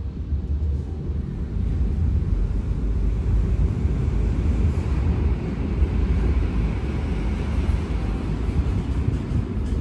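Steady low rumble of a moving vehicle: engine and road noise, growing a little louder about a second and a half in.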